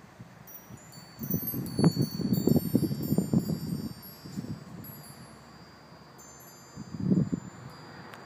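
Wind chimes ringing with many thin, high, overlapping tones, busiest in the first few seconds and again near the end. Low rumbling bursts, loudest between about one and four seconds in and again near the end, sound underneath.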